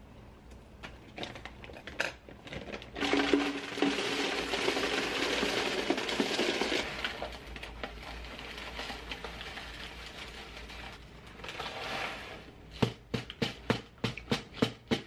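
A plastic bag of granola is handled and cut open, then dry granola is poured from the bag into a clear storage canister with a loud, steady rustling rattle. Near the end comes a quick run of sharp clicks and taps.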